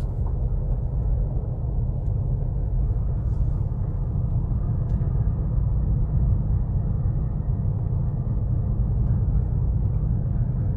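Steady low rumble of a vehicle driving slowly over a dirt lot, heard from inside the cab: engine and tyre noise.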